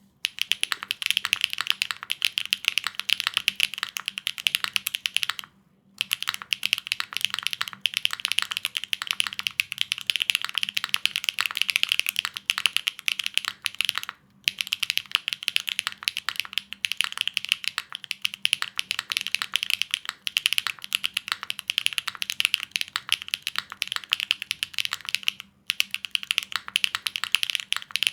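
Fast, continuous typing on a Neo60 CU mechanical keyboard with HMX Snowfall switches: dense keystrokes that stop briefly three times, near a quarter, the middle and near the end.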